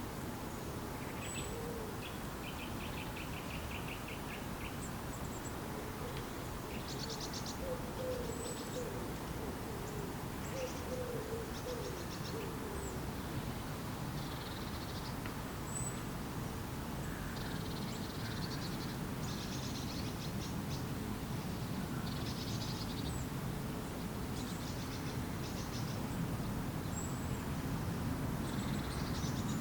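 Birds calling and singing: short high whistles and fast trills and rattles throughout, with a few low wavering calls in the first half, over a steady background hiss that grows a little near the end.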